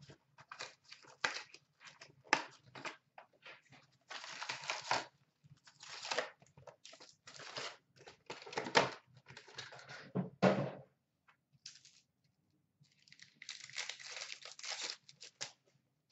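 A cardboard box of hockey trading card packs being torn open and the packs' wrappers ripped: irregular tearing and crinkling in short spells, with a brief lull about two-thirds of the way through.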